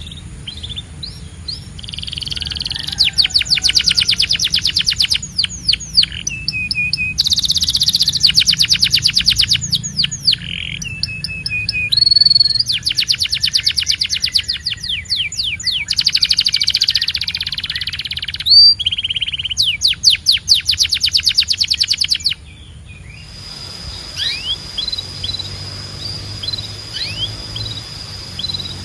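Canary singing: loud rolling trills of rapidly repeated notes, broken by short sliding whistles. About two-thirds of the way through these give way to fainter, scattered chirps. A low steady hum sits underneath.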